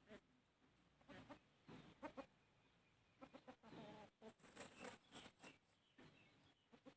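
Chickens feeding, giving a string of short, faint clucks with a few sharp clicks among them.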